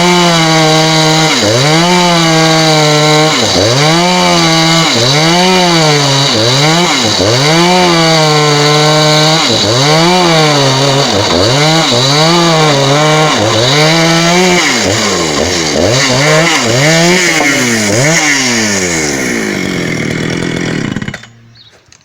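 A 272 chainsaw cutting dry, very hard wood. The engine pitch dips as the chain bogs in the cut and climbs back again, about once a second. The sound stops abruptly near the end.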